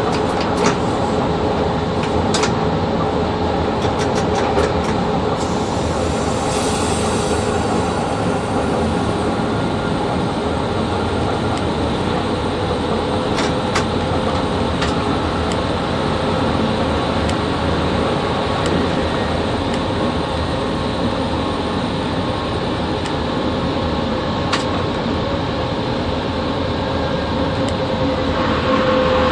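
Running noise inside the cab of a VL80 electric freight locomotive under way: a steady rumble with a constant whine, and scattered sharp clicks.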